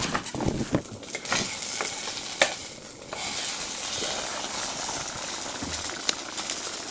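A utensil stirring and knocking against a pot of boiling glass noodles, several sharp clinks in the first three seconds, then a steady hiss.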